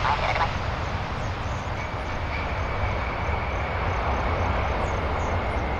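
Four jet engines of a Boeing 747 airliner running loudly in a steady rumbling roar as it rolls out along the runway just after touchdown, with a faint steady whine from about two seconds in.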